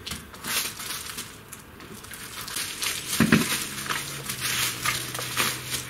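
Plastic and bubble-wrap packaging crinkling and rustling as it is pulled off and handled, growing busier and louder about three seconds in.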